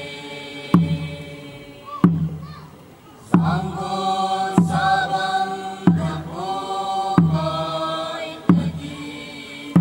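A drum struck in a slow, even beat, about one stroke every 1.3 seconds, each stroke ringing low. Over it a group chants in long held notes, growing much louder about three seconds in.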